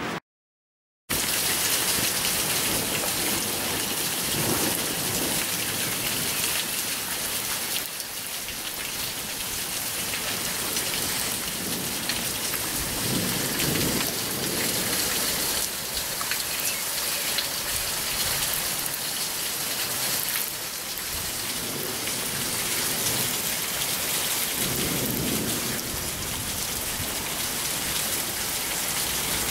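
Hailstorm: hail and rain pelting down in a dense, steady hiss, with a few low rumbles swelling up and fading.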